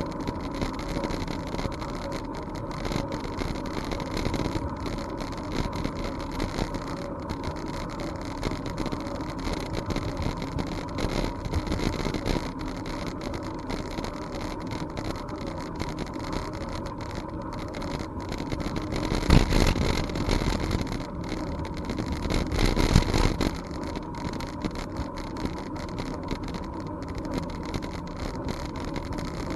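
Steady rushing and rumbling of a bicycle ride along a trail: wind on the microphone and tyres on the path, with many small clicks and knocks. Two louder surges come about two-thirds of the way through, each lasting a second or so.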